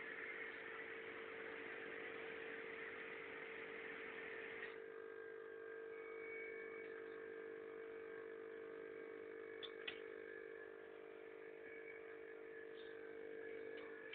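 Steady electric motor hum of a hair wefting machine running without stitching, with a hiss that drops away about five seconds in and two light clicks near ten seconds.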